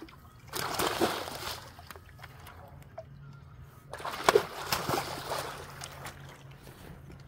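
A large hooked carp thrashing in shallow water at the bank, splashing hard in two bouts, about half a second in and again about four seconds in.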